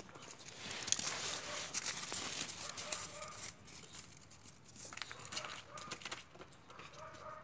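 Paws and feet crunching and scuffling on crusted snow as two boxer dogs chase each other. The crunching is busiest in the first few seconds and then thins out. A few short high calls come in between.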